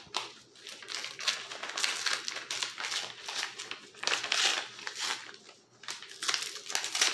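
Hands crinkling and pulling at a paper mailer envelope while struggling to tear it open: irregular rustling that comes and goes, with a short lull about five and a half seconds in.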